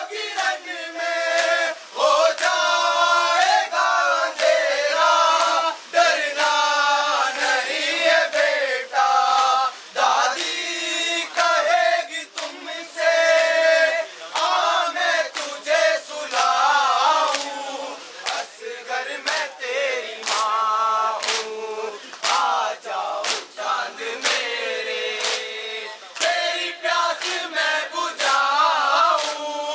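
A group of men chanting a noha, a Muharram lament, in chorus, with repeated sharp slaps of matam (chest-beating) cutting through the singing.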